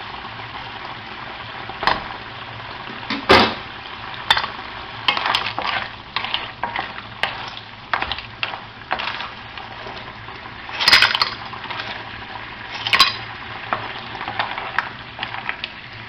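Seafood frying in oil in a pan, a steady sizzle, with a utensil stirring and knocking against the pan. The loudest knock comes about three seconds in, and there are more around eleven and thirteen seconds.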